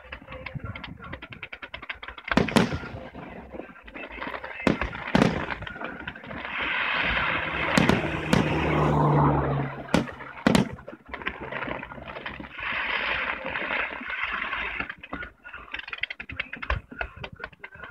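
Fireworks display: a rapid string of crackling pops from cakes and comets, broken by several loud shell bursts between about two and eleven seconds in, with stretches of steady hiss around the middle.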